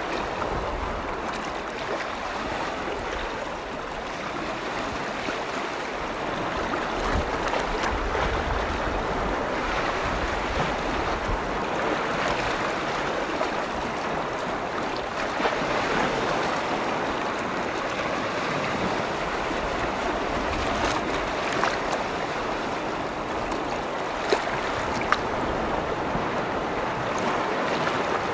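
Small waves washing on a lake shore in a steady wash, with a few sharper splashes near the end. Some low wind rumble on the microphone in the first half.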